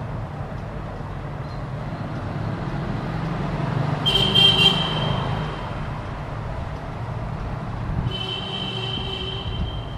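WAG9 electric locomotive's horn: a short blast about four seconds in and a longer one starting about eight seconds in, over the steady low rumble of the approaching train.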